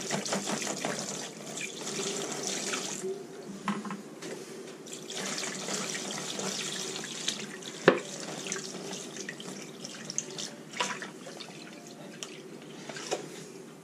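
Brine being poured from a container into a plastic zip-top bag of chicken halves: a running, splashing pour of liquid. A single sharp knock about eight seconds in.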